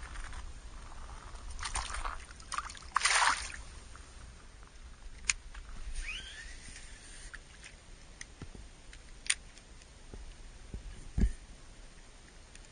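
Water sloshing and trickling at the waterline, with a louder slosh about three seconds in. Scattered sharp clicks and a single knock come near the end.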